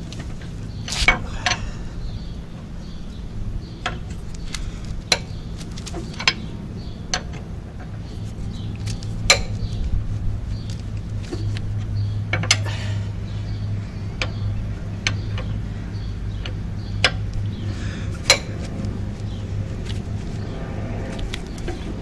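Metal hand tools clinking and tapping against metal car parts, in about a dozen sharp, irregularly spaced clinks, over a steady low hum.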